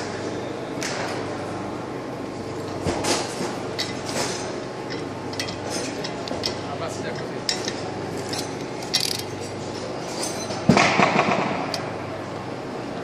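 Scattered metallic clinks and taps of metal tools being handled, with a louder cluster of knocks and clatter about eleven seconds in, over a steady background noise.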